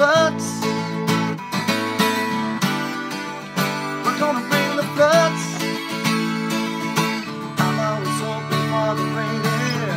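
Acoustic guitar strummed steadily in an even rhythm. A wordless voice rises and falls over it near the start, about halfway through and near the end.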